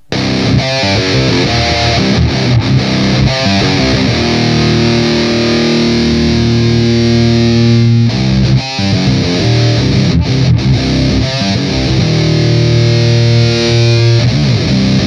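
Electric guitar played through an Electro-Harmonix Nano Metal Muff distortion pedal into a speaker-cabinet simulator, giving a heavy, saturated metal tone. Quick, choppy riffing alternates with two long held chords, one in the middle and one near the end.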